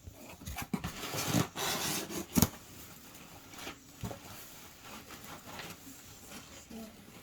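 Hands working worm bin bedding and castings: rubbing and scraping, busier in the first couple of seconds, with one sharp knock about two and a half seconds in, then fainter scattered rustles.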